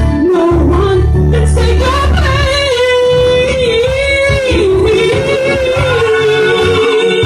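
A woman singing a song live into a handheld microphone, amplified through a PA, holding long notes that waver in pitch. A low bass accompaniment sounds under the first couple of seconds.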